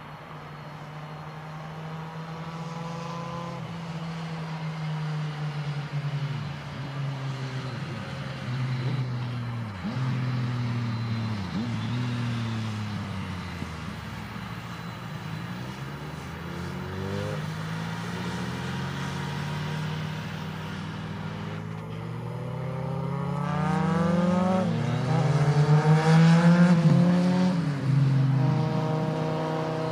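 Twin turbofan engines of a Boeing 767-300ER freighter taxiing at low thrust: a steady jet whine and rumble whose tones slide down and up as the aircraft moves past. It grows louder and is loudest a few seconds before the end.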